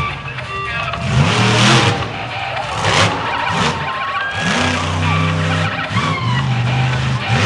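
Monster truck engine revving hard, its pitch climbing and dropping several times, with a steady high hold about five seconds in.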